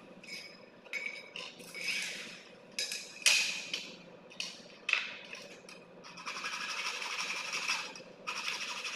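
Aluminium square-tube pieces clinking, knocking and scraping as they are handled and set out on a concrete floor. About six seconds in, a hacksaw starts cutting an aluminium tube with a steady high-pitched rasp, which breaks off briefly near the end.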